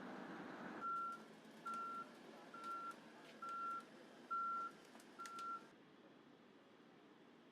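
A vehicle's reversing alarm beeping six times at one steady pitch, about one beep a second, after a brief rush of noise at the start.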